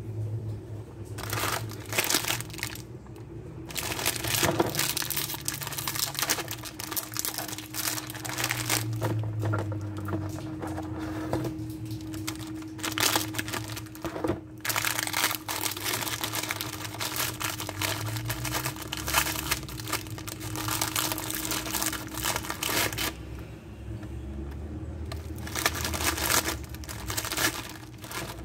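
Plastic Oreo biscuit packet crinkling and being torn open by hand, a dense crackling that comes in waves and eases off a couple of times.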